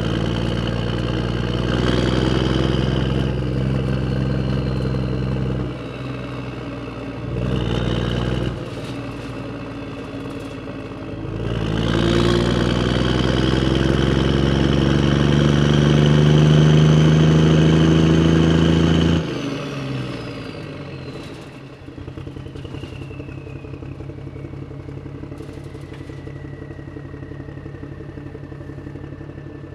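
A motor vehicle engine running, breaking off and resuming abruptly a few times. Partway through it climbs steadily in pitch for several seconds as if revving up, then cuts off suddenly, leaving a quieter, lower hum.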